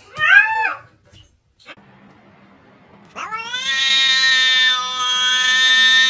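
A domestic cat meows once, short and rising then falling in pitch, then about three seconds in begins a long, drawn-out yowl held at a steady pitch that is still going at the end.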